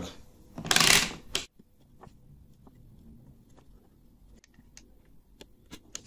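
Hands handling tools at a workbench-style setup: a short loud rustle about a second in, then faint scattered light clicks and taps as a soldering iron is brought to a circuit board.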